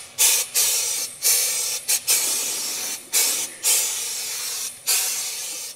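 Compressed air hissing out of an electrostatic powder coating gun as it sprays powder, in about seven bursts with short breaks between them. The later bursts last around a second each.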